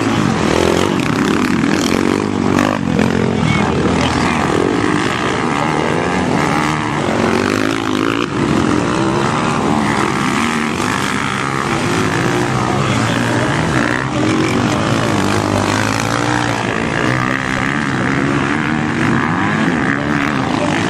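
Motocross motorcycle engines racing on the track, several at once, revving up and falling back over and over as the riders accelerate, shift and brake.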